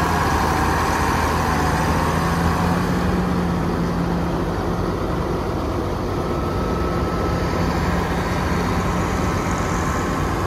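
Diesel engine of an older red front-loader tractor running steadily while it carries round hay bales on its bale grabber.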